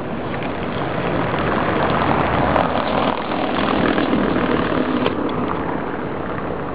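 City street traffic: a steady rushing noise of cars on the road, a little louder in the middle, with a few faint clicks.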